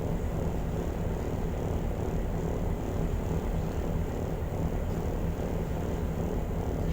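Car ferry's engines running steadily on board: a constant low drone with a steady hum.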